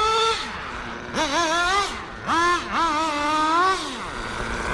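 Nitro engine of a 1/10-scale GS Racing Vision RC truck revving in several short throttle bursts, the high-pitched whine rising and then dropping away each time.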